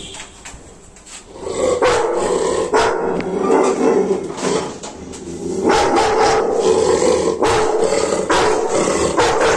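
A caged dog barking over and over and growling, loud from about a second and a half in.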